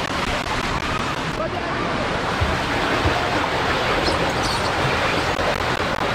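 Steady rush of water running down a tube water slide and splashing out into the pool, with faint children's voices behind it.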